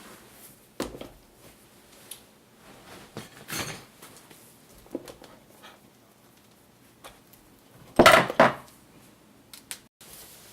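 Metal hand tools and motorcycle parts being handled, giving scattered clinks and knocks, with two loud knocks close together about eight seconds in.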